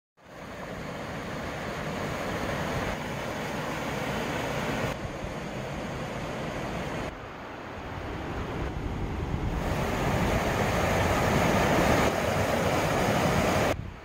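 Mountain stream rushing over rocks and boulders: a steady rush of water that dips about seven seconds in, grows louder after that, and cuts off just before the end.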